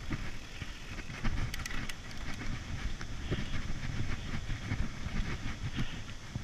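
Mountain bike riding on a dirt forest trail: a steady low rumble of tyres on dirt and wind on the camera microphone, with scattered clicks and rattles from the bike.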